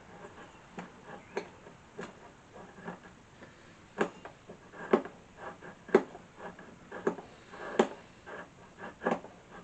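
A knife blade scraping resinous fatwood into a small pile of shavings, with short strokes about once a second, some sharper and louder than others.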